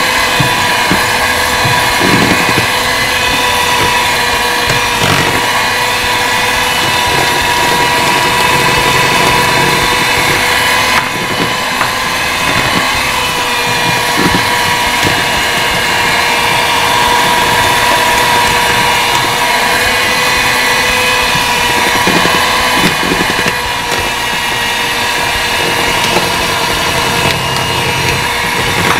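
Electric hand mixer running steadily, its motor giving a constant whine as the beaters churn thick cake batter.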